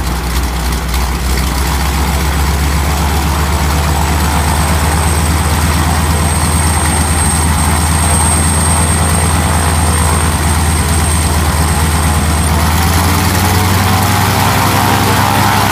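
Pratt & Whitney R-985 nine-cylinder radial engine on a biplane running steadily on the ground with the propeller turning, on a test run after a cylinder replacement. The engine gets a little louder about a second in and picks up speed slightly near the end.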